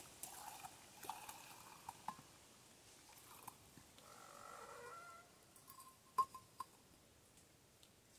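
Faint handling of a thermos flask and a steel camping mug: light metallic clicks and knocks, a short pour about four seconds in, then a sharp ringing clink, with two smaller ones after it, as the mug is set on the stones of the fire ring about six seconds in.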